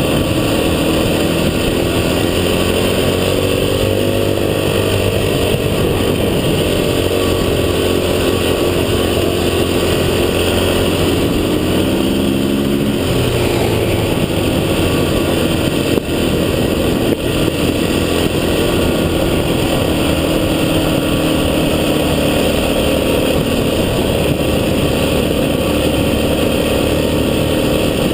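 Off-road vehicle engine running under way, its revs rising and falling with the terrain.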